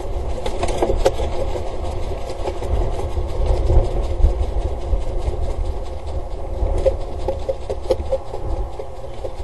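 A steady low rumble with many scattered knocks, scrapes and rattles as a juvenile peregrine falcon moves and flaps its wings on the nest box's grid.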